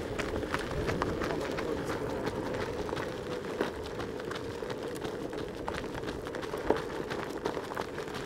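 Runners' footsteps on a dirt road: light, irregular footfalls from several runners at once, over a steady rushing background noise.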